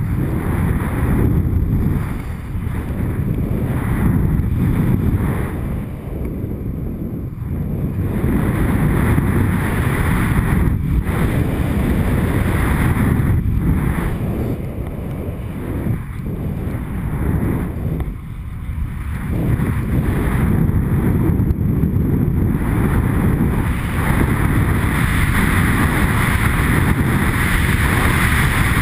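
Wind rushing over a GoPro camera's microphone during a fast ski descent, with the skis hissing over the snow. The hiss gets brighter and louder near the end.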